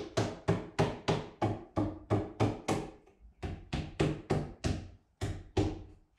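Rapid hammer blows on the wooden mast-mount fitting of a plywood boat hull, about four a second, each a sharp knock with a short ring. They pause briefly twice, near the middle and again near the end.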